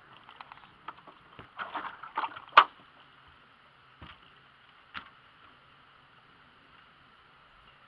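A run of clicks and knocks from gear being handled on a fishing boat's deck, the loudest about two and a half seconds in, then two single knocks about a second apart.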